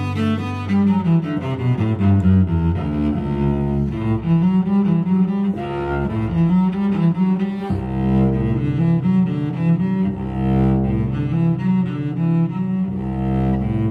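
Background music: low bowed strings, cello-like, playing a moving melody over held bass notes.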